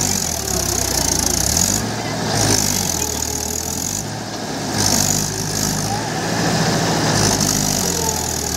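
Mahindra tractor's diesel engine working hard as it pulls a loaded trailer through deep mud, its revs rising and falling several times.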